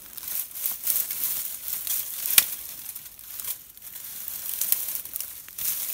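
Dry leaves, twigs and brush crackling and rustling under a sneakered foot as it prods and shifts old horse bones lying in the undergrowth, with one sharp crack about two and a half seconds in.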